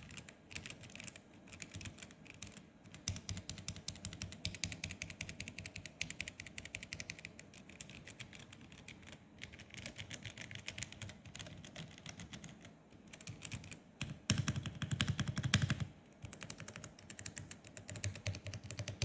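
Typing on a Zeus 75 mechanical keyboard as a sound test, a steady stream of irregular keystroke clacks. About fourteen seconds in comes a faster, louder run of keystrokes lasting about a second and a half.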